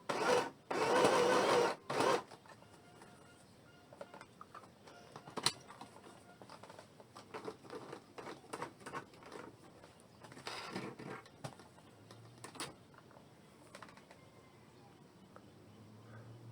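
Small portable electric sewing machine running on a zigzag stitch, with two brief stops and then stopping about two seconds in. Afterwards only scattered light clicks and small knocks.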